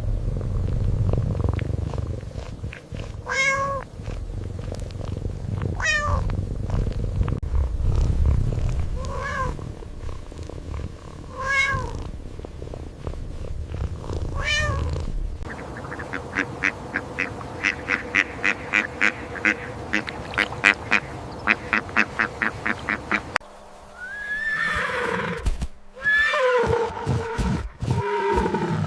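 Animal calls: a low rumble with five short arched calls spaced a few seconds apart, then several seconds of a rapid pulsing call, then a few gliding calls near the end.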